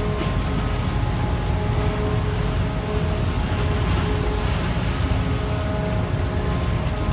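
Grab dredger's machinery running with a steady low drone and whine, over a rushing noise of wet dredged mud pouring from the opened 200 cubic-metre grab bucket into a hopper barge.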